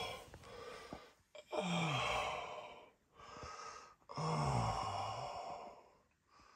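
A person's heavy, groaning sighs, three of them, each about a second long and sliding down in pitch.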